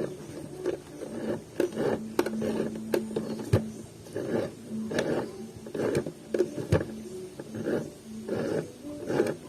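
Portable sewing machine stitching in short, uneven bursts, roughly one a second. Its small motor gives a steady hum under the needle's clicks.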